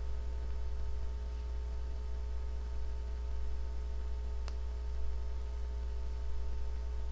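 Steady low electrical hum with a faint buzz of steady tones underneath. A single light click comes about four and a half seconds in.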